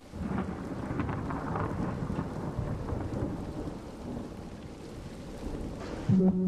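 Thunderstorm: steady rushing rain with low rolling thunder, easing slightly toward the end. Music with a pulsing beat comes in just before the end.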